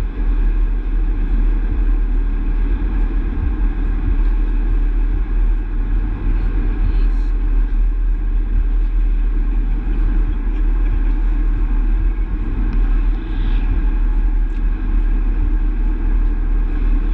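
Astra GTC driving along steadily: a continuous low rumble of tyres on the road and engine. There are no gear changes or other distinct events.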